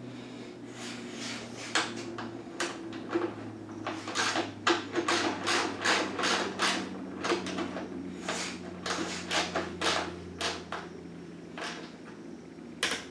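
Socket ratchet clicking in short, irregular runs while tightening the exhaust mounting bolts on a dirt bike.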